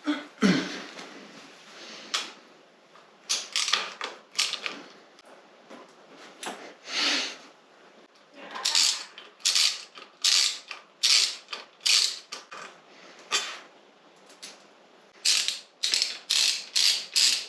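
Ratchet wrench clicking in short bursts of strokes while undoing the bolts that hold the motorcycle's front forks. The strokes come in irregular clusters, with a quick run of them near the end.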